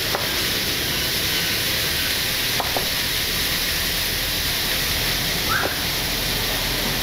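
Steady sizzling hiss of food frying in a pan, with a few soft knife taps on a plastic cutting board as a tomato is sliced.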